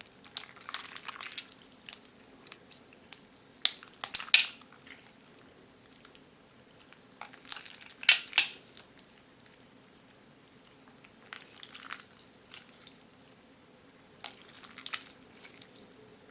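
PVA slime packed with plastic pearl beads being squeezed and kneaded by hand, giving crunchy crackling clicks in five bursts about every three to four seconds.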